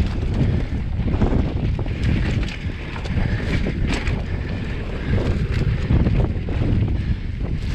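Wind buffeting the microphone while a mountain bike rolls down a dirt singletrack: steady tyre and trail rumble, with frequent short clicks and rattles from the bike over rough ground.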